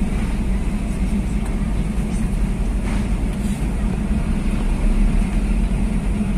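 Vehicle engines running inside a ferry's enclosed steel car deck as cars and trucks drive off through the bow door: a loud, steady low rumble with a constant hum.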